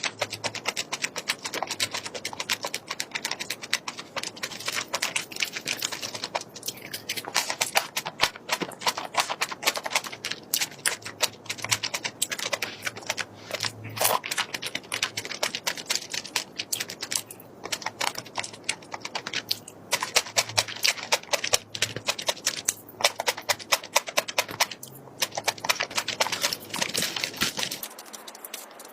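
Crunchy food being bitten and chewed close to the microphone: a dense, irregular run of crisp clicks and crackles.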